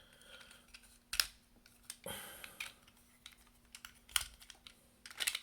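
Hard plastic toy parts clicking and scraping as they are twisted and handled: a few sharp clicks about a second in and near the end, with a brief scrape around two seconds.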